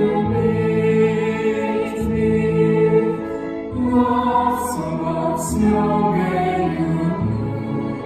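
A group of voices singing a song with held notes over musical accompaniment.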